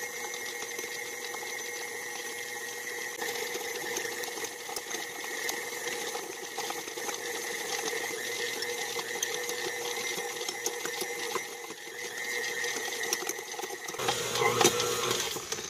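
Stand mixer running steadily on speed 4, its dough hook kneading yeast-roll dough in the bowl.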